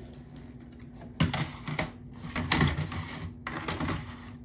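Hands handling objects: two sharp clicks or knocks, then a stretch of rustling and rattling, over a faint steady hum.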